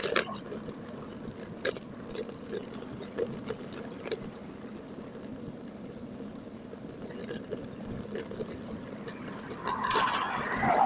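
Road and wind noise from a bicycle ride, sped up to double speed, with frequent small clicks and rattles from the bike over the road surface. A louder rush swells up near the end.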